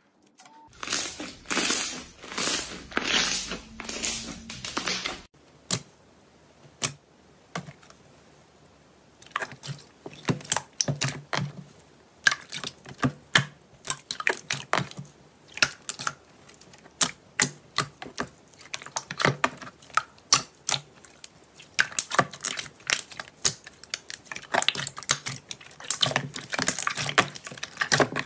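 Slime being squished and pressed by hand, giving quick sticky clicks and pops. The first few seconds are a denser, continuous squelching that cuts off abruptly; after a short lull, irregular crisp clicks come thick and fast.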